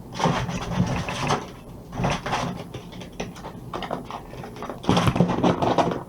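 Rustling and clattering in three bursts from wood pigeons moving at a bird feeder: about a second long near the start, shorter about two seconds in, and about a second long near the end.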